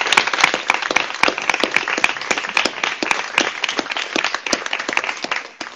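Audience applauding, the clapping growing quieter and thinning out until it stops just before the end.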